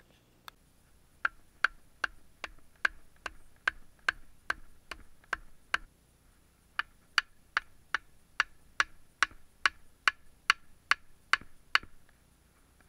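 Wooden stake being pounded into the ground with the back of a hatchet: steady, sharp knocks with a short ring, two runs of about a dozen strikes each at about two and a half a second, with a pause of a second in the middle.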